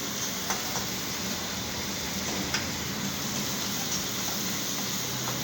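Steady hiss of cooking at the stove, with a few faint, light clicks.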